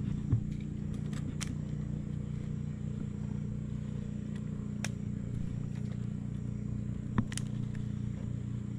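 An engine running steadily at a low idle, with a sharp knock just after the start and another near the end.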